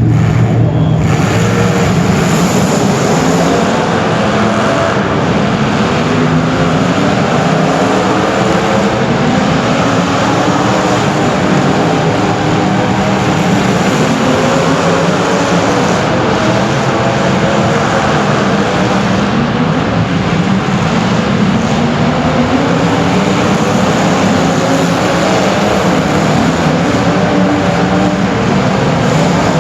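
Several racing engines running hard at once, their pitches rising and falling and overlapping as the vehicles accelerate, lift off and pass.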